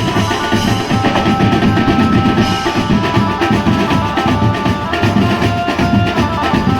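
A benjo band playing live: fast, dense drumming under a melody line of long held notes.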